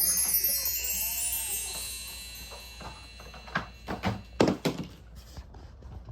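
A shimmering chime glissando, many high ringing tones sweeping and fading over about three seconds. Then a few sharp knocks come in quick succession about four seconds in.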